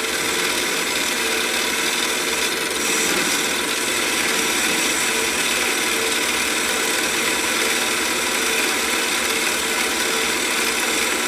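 Harbor Freight 7x10 mini lathe running under a light turning cut of about two thousandths on a steel bar: a steady motor and gear-train hum with a faint steady tone and the cutting noise of the tool on the steel.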